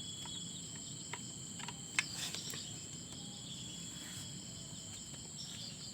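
Crickets chirring steadily in a high, even tone, with a few light sharp clicks in the first two seconds.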